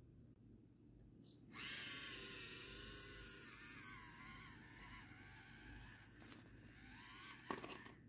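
Small electric motor and gear train of an Axial SCX24 1/24-scale RC crawler whining as it climbs over rocks. The whine starts about a second and a half in, its pitch wavering up and down with the throttle, and a sharp knock comes near the end.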